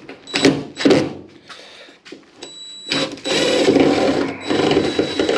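DeWalt 20V MAX cordless driver backing screws out of a rusty bracket in a car's windscreen frame. There are short bursts in the first second, then it runs continuously from about three seconds in.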